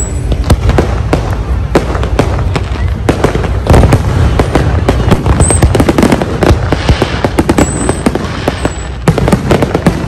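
Aerial fireworks display: shells bursting one after another in a dense run of sharp bangs and crackles, the loudest about four seconds in and again near the end.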